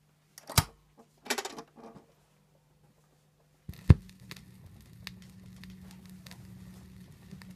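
Turntable playing a 7-inch 45 rpm vinyl single: a few sharp mechanical clicks, then just before four seconds in the stylus touches down with a thump, followed by the steady low rumble and crackle of the needle riding the lead-in groove before the music.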